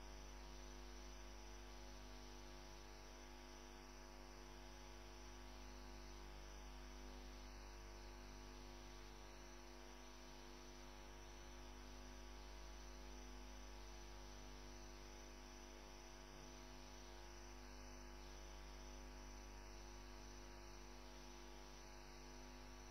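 Near silence with a steady electrical mains hum, an unchanging low drone with a stack of steady overtones.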